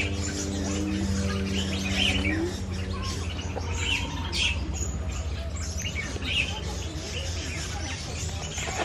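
Many birds chirping and tweeting in short, overlapping calls, over a steady low hum.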